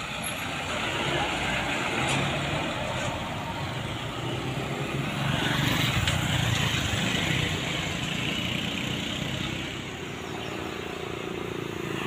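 Medium-sized bus's diesel engine running as it rounds a hairpin bend and passes close by. It grows louder towards the middle as it goes past, then eases off as it pulls away.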